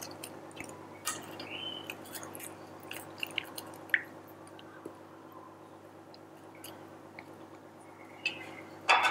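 Soft, wet squishing and small clicks of coffee-soaked ladyfingers being dipped, broken and pressed into a steel baking dish, over a faint steady hum. A brief louder sound comes near the end.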